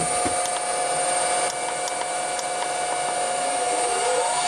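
Electric motor on a variable frequency drive turning a Sanden automotive A/C compressor by belt, running steadily with a high whine over a hiss. Near the end a tone dips in pitch and climbs back as the drive's speed setting is changed.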